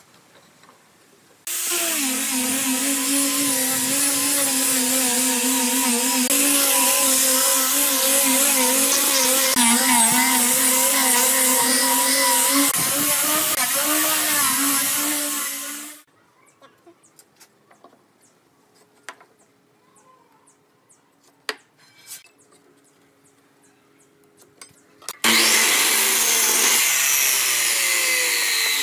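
Angle grinder with a sanding disc running steadily on a pine pallet-board panel, a loud whine with a strong hum, stopping suddenly about 16 seconds in. A few soft clicks of handling follow. Then about 25 seconds in a miter saw starts and cuts a short pallet board, its pitch falling near the end.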